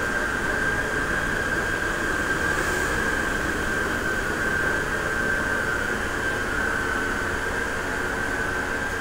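Vacuum cleaner motor running steadily, with a constant high whine over a steady rushing of air.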